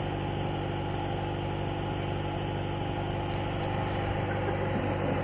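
Off-road vehicle engine idling steadily.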